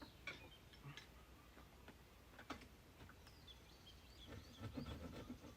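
Faint hand-tool work on wood: a few sharp taps and clicks, then a spell of scraping near the end, with small birds chirping in the background.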